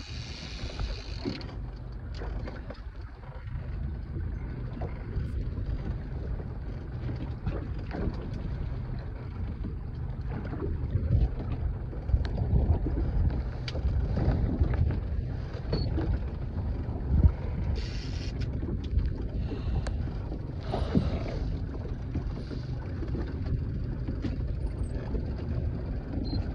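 Fishing boat moving over choppy lake water: a steady low rumble of wind and water against the hull, with a few brief hissing bursts.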